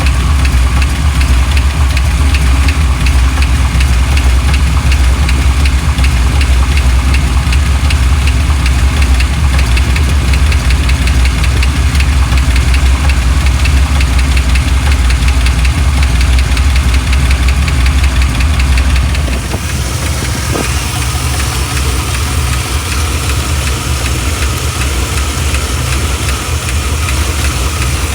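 1987 Chevrolet C10 pickup engine idling with a fast, steady ticking over the running note, an odd tick whose cause the owner doesn't know. About two-thirds of the way through, the sound gets quieter and the deep rumble thins out.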